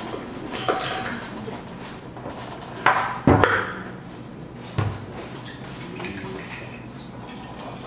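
Metal parts of a direct drive ebike hub motor's stator and side cover clinking and knocking as they are handled and fitted by hand. A small click comes early, the loudest two knocks about three seconds in, and another near five seconds.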